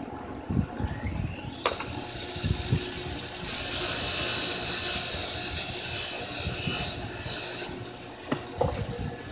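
Bench grinder's wire wheel spinning up to speed with a rising whine, then running with a steady high whine. From about three and a half to nearly eight seconds in, the cut end of a 3/8-inch metal AC line is pressed against the wire wheel, adding a harsh scratchy hiss as the wire brush cleans the line end.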